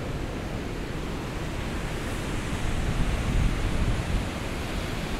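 Steady rushing of a creek and small waterfall in the canyon below. Low wind buffeting on the microphone swells through the middle.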